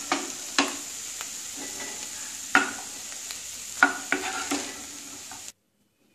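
Wooden spatula stirring and tossing vegetables and sprouted mung in a hot non-stick wok, over a steady sizzle from the pan with the gas just turned off. Sharp knocks of the spatula against the pan come about five times, and the sound cuts off suddenly about five and a half seconds in.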